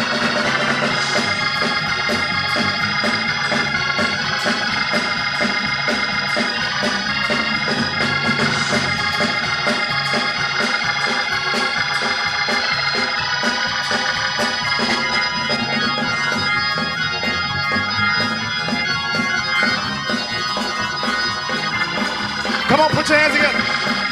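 Instrumental gospel praise music: sustained organ chords over a steady beat.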